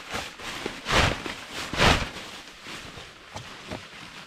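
Rustling of nylon camping gear being handled and spread out on the ground, with two loud swishes about one and two seconds in.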